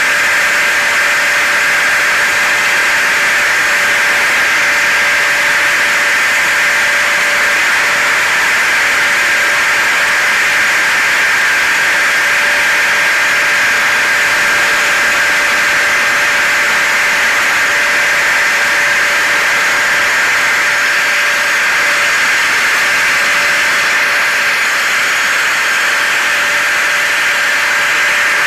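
Steady blend of hair dryer, vacuum cleaner and car noise: a loud, even hiss with a constant motor whine that holds unchanged throughout.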